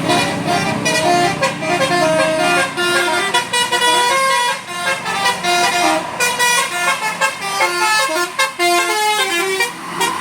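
An Indonesian bus's 'telolet basuri' musical horn plays a fast melody of short stepped notes, with brief breaks in the tune.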